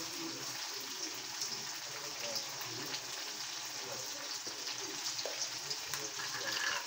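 Pork and potato chunks in caldereta sauce sizzling and bubbling in a wok over the heat, a steady crackle as the sauce cooks down.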